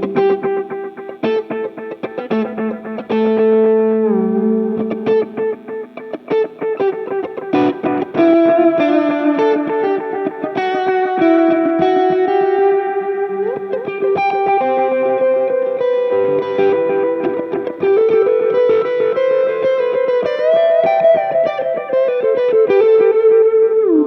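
Electric guitar played through Saphue effects pedals: a melodic lead line of single picked, sustained notes, with a few bends that slide the pitch up.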